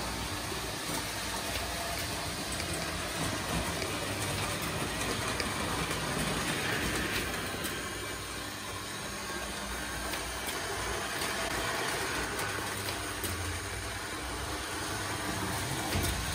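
Lionel O gauge NW2 switcher model running on three-rail tinplate track: a steady rumble of the electric motor, gears and metal wheels on the rails.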